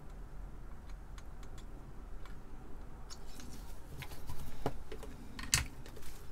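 Soldering iron tip scrubbed in a brass-wool tip cleaner, a dense scratchy clicking rustle, followed by a single sharp click as the iron is set down near the end.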